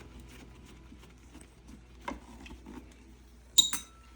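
Small parts and tools handled on a workbench: scattered soft clicks and knocks, then one sharp metallic clink with a short ring about three and a half seconds in.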